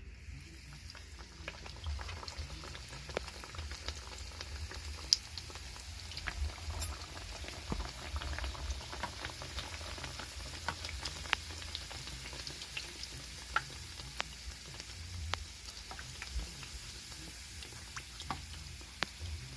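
Fry bake dough frying in a pot of hot oil: a steady sizzle with frequent sharp pops and crackles.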